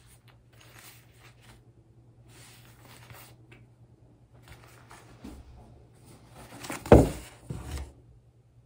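Soft rustling and handling of a small fabric wallet as it is opened, folded and turned over by hand. About seven seconds in comes one loud thump, with a smaller knock half a second later.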